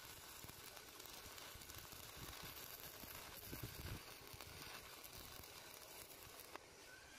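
Stick-welding arc on steel, crackling and sizzling steadily as the bead is run.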